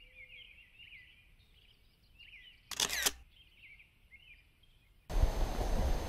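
Small birds chirping faintly, broken about three seconds in by one brief, sharp, loud burst. About five seconds in, a steady outdoor background noise cuts in suddenly.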